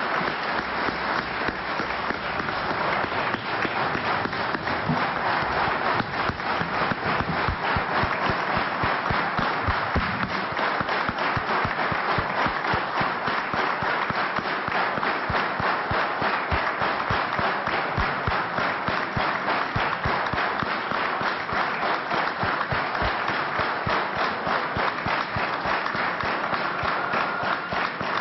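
Large crowd applauding: many people clapping densely and steadily.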